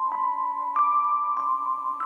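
Background music: a slow melody of struck, ringing notes, a new note about every two-thirds of a second.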